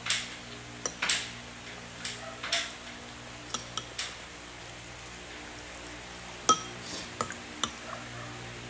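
A child's plastic spoon scraping and tapping in a bowl as rice is scooped up: a string of short clicks and scrapes, the sharpest about six and a half seconds in.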